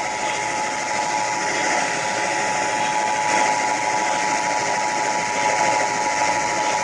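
Emergency Alert System attention signal, the steady two-tone alarm, sounding for a Required Monthly Test over a hissing radio signal. It cuts off abruptly near the end.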